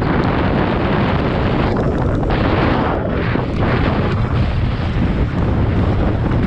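Wind rushing over an action camera's microphone as a mountain bike descends a dirt trail at speed, with a steady low rumble of the tyres over the ground.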